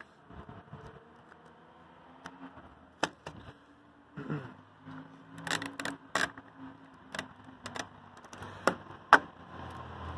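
Hands handling paper and small objects on a table: a series of sharp clicks and taps, irregularly spaced, several much louder than the rest, over a low steady hum.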